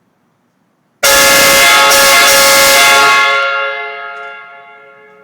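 HornBlasters three-trumpet air train horn mounted on a car, blown once for about two seconds starting about a second in: a very loud chord of several steady notes. After it is released, the sound rings on as an echo that fades over about two seconds.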